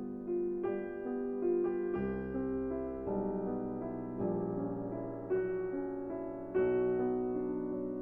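Background piano music: slow single notes and held chords, a new note struck every half second or so.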